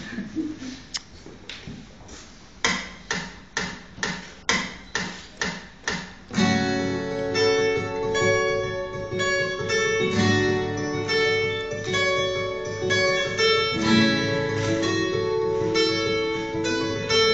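Two acoustic guitars played together. For the first six seconds there are separate, sharp strummed strokes about two a second, then both guitars break into fuller continuous playing with ringing notes.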